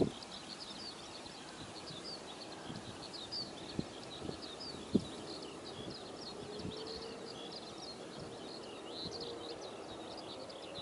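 Many small birds chirping rapidly and continuously, with a few soft low thumps in the first half and a faint hum joining midway.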